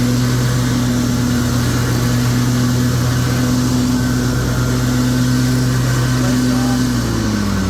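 Exmark Lazer Z zero-turn mower's engine running steadily, its pitch dropping near the end as the revs come down.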